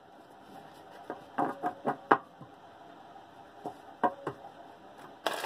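A tarot deck being shuffled by hand: soft taps and slaps of the cards in a few short clusters, with a brief rustle of cards near the end.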